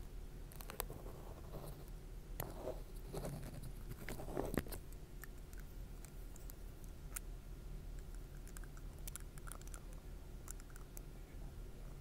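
A red marker handled close to the microphone: faint scratching, rustling and sharp clicks, busier in the first five seconds, then only sparse light ticks.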